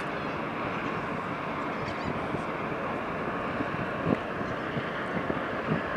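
Steady rushing noise of wind on the microphone, with a faint bird call about two seconds in and a soft thump a little past the middle.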